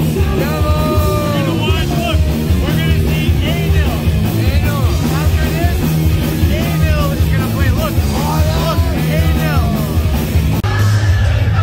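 A live rock band playing loud, with bending melodic lines over a heavy, steady low end. The sound changes abruptly near the end.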